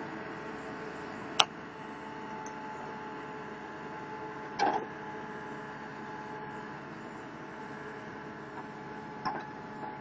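HAMAC TS series skid steer loader running steadily, its engine and hydraulics giving a constant hum with a whine, while its backhoe attachment digs in a trench. Three sharp knocks from the bucket and arm: a loud one about a second and a half in, others near five and nine seconds.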